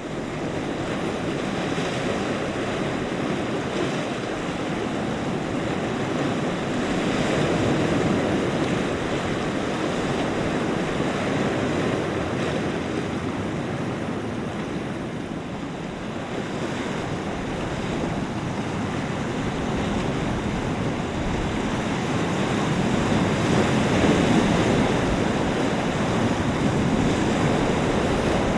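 Waves washing on a lake shore, with wind blowing across the microphone. It is a steady rush that swells and eases slowly, loudest about a third of the way in and again near the end.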